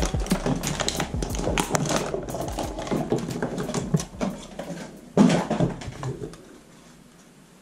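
Hands unpacking a toy foam-dart pistol: the cardboard backing card and plastic parts rustle and click as foam darts are pulled off the card, with a louder knock about five seconds in. The handling dies away to quiet near the end.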